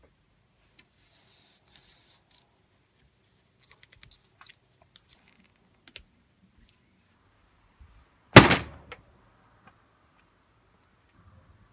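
One sudden, loud chop of a steel axe head biting into the top of a wooden box about eight seconds in, dying away within about half a second. Before it, faint scattered clicks and a soft rustle of hands working a leather lace.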